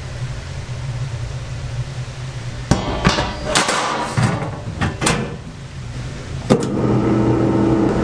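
Kitchen work over a steady low hum: a run of sharp knocks and clatters begins a little under three seconds in, and about six and a half seconds in a steady, pitched hum starts up.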